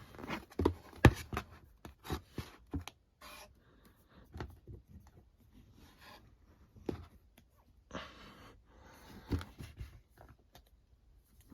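Manga paperbacks and their box set being handled: scattered taps, knocks and paper or cardboard rustles, with longer sliding rustles about eight and nine seconds in.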